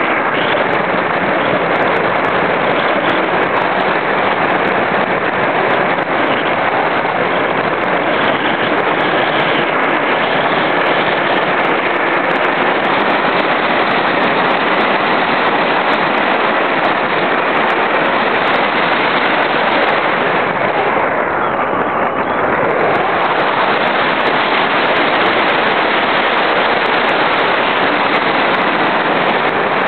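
Airflow rushing over a small camera mounted on an RC glider in flight: a loud, steady rush of noise with crackling, easing a little in the upper range about three quarters of the way through.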